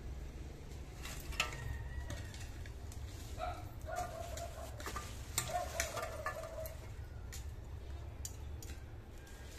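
Whole chicken spit-roasting over an open fire: scattered light clicks and crackles over a steady low rumble, with two short pitched calls around the middle.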